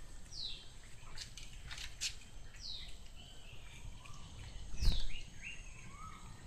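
A bird calling: a short, high, downward-sliding note repeated about every two seconds, with softer lower gliding notes between. A few faint clicks and one loud thump about five seconds in.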